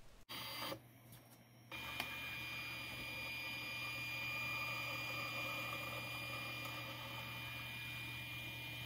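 Stepper motor running with a steady whine made of several fixed tones, driving the model railway turntable's main shaft through a GT2 toothed belt and pulley. It starts abruptly about two seconds in.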